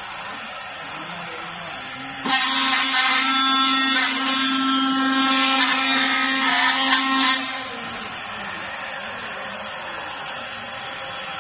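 Five-axis CNC machine's spindle and end mill trimming a vacuum-formed plastic part. A loud, high, multi-toned whine sets in about two seconds in and lasts about five seconds, then stops, leaving a steady machine hum.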